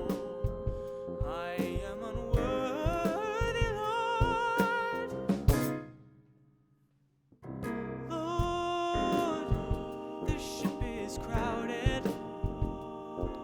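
Background music with a drum beat and a gliding melody line, part of a song's break between verses. Just before halfway it stops after a hit, leaving near silence for about a second and a half, then starts again.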